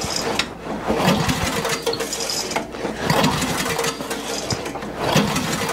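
Briggs & Stratton 8 HP I/C single-cylinder engine being pull-started with the choke on: the recoil starter is yanked repeatedly, cranking the engine over in uneven strokes about once a second. This is a start attempt after fuel was poured into the carburettor.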